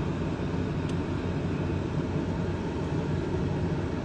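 Steady road and engine noise heard inside a moving car's cabin, with the air conditioning blowing.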